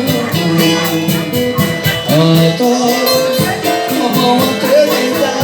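Live band music between sung lines: plucked strings and sustained instrument tones over percussion that keeps a quick, steady beat.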